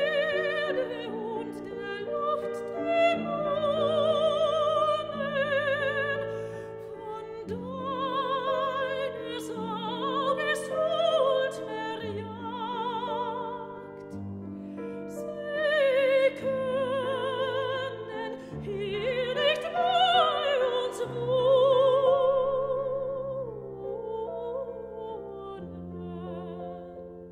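Background music: a high operatic voice singing long notes with strong vibrato over sustained accompaniment chords.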